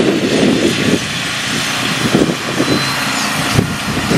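Road traffic: cars passing on a highway, a steady rush of tyre and engine noise.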